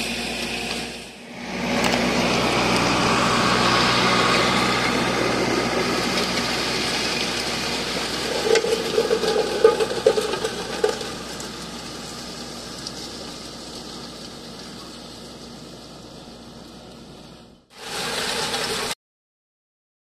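Valtra BM100 tractor's diesel engine working under load as it pulls a 40-disc offset disc harrow through dry stubble, with the steel discs rattling and scraping through the soil. The sound dips briefly about a second in, grows fainter through the second half, and cuts to silence just before the end.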